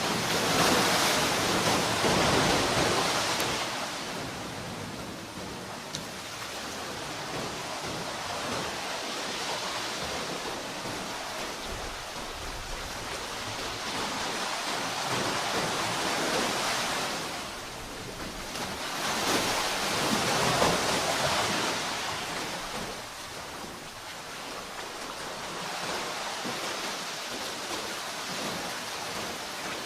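Ocean waves breaking and washing on a shore: a steady rushing surf that swells into loud breakers about a second in and again near the middle, easing off between them.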